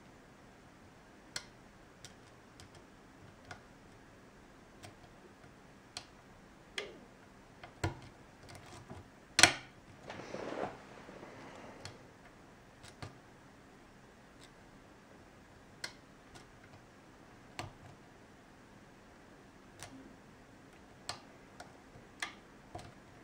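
Scattered light clicks from a hook pick working the pin stacks of an ASSA oval lock cylinder under tension, pins clicking as they move and set. One sharper click comes about nine seconds in, followed by a brief rustle.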